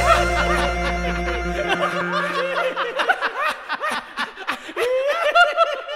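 People laughing in short, quick snickers and chuckles, while background music fades out over the first two or three seconds.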